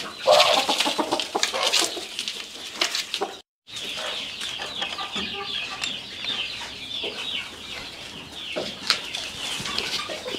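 A flock of chickens clucking and calling at feed. The sound cuts out briefly about three and a half seconds in, and then a steady chatter of rapid, high chirps carries on.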